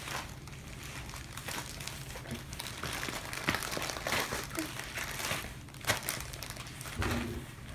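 Small clear plastic bag of sequins crinkling as fingers rummage through it, in irregular crackles and small clicks.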